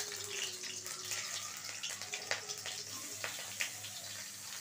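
Chopped green chillies and nigella seeds sizzling in hot mustard oil in a wok: a steady hiss with scattered crackles and pops.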